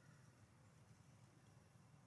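Near silence: faint steady low background noise.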